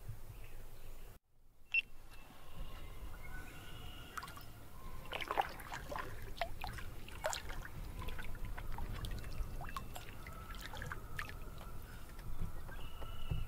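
Water trickling and dripping around a canoe on a lake, with small splashes and clicks bunched near the middle, over a low steady rumble.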